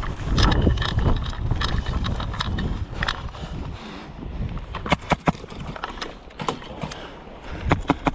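Airsoft guns firing: sharp pops in small clusters of two or three, starting about halfway through. Before them there is a low rustling rumble of movement and wind on the microphone.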